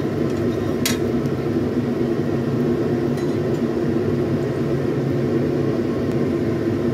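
A steady low kitchen drone runs throughout, with one light clink about a second in, the metal spatula touching the nonstick frying pan.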